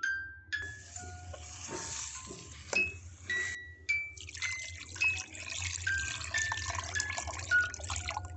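Running water splashing, in two stretches with a short break a little before halfway, over light background music of mallet-like notes.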